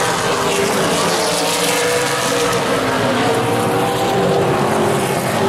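A pack of Super Late Model race cars' V8 engines running at racing speed, the engine note rising and falling as the cars pass.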